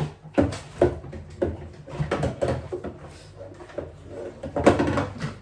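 Clatter of food containers and packets being taken out of a refrigerator: a string of light knocks and clicks with rustling of bags, getting louder and busier near the end.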